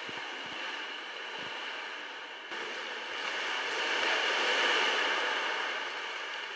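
Sea water washing into a sea cave, a steady rushing hiss that jumps up about two and a half seconds in and swells to its loudest around four to five seconds before easing off.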